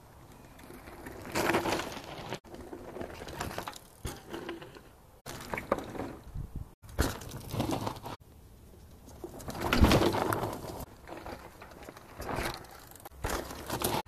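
Mountain bike riding over a dirt trail: tyre and chassis noise over roots and loose gravel, coming in uneven swells, loudest about ten seconds in.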